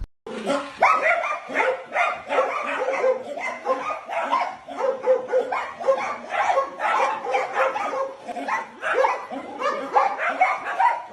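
Small dogs, dachshunds, barking and yapping excitedly at a toy train, several barks a second without a pause.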